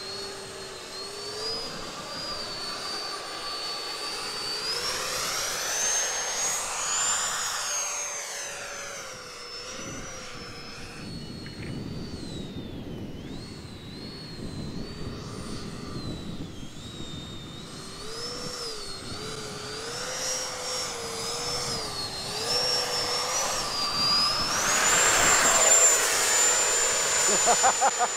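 FMS F-16's 70mm electric ducted fan whining in flight, its pitch rising and falling with the throttle. It swells loudly as the jet passes by at about five seconds in, and again near the end, where the whine sits at its highest pitch under high power.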